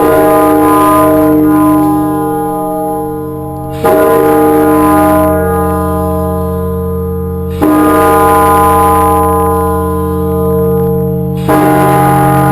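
Milwaukee City Hall's large tower bell striking, loud and unannounced: four strokes about four seconds apart, each sudden and followed by a long ringing chord of overlapping tones that carries into the next stroke.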